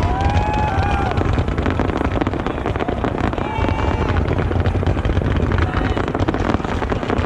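Fireworks crackling densely and without a break over a steady low rumble, as ground-level fountains and mines shower sparks.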